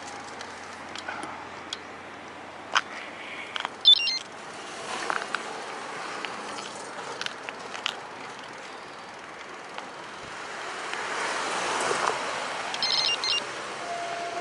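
Riding noise from a bicycle on the road: steady wind and tyre noise with scattered clicks and rattles, and a broad swell of noise about eleven to twelve seconds in.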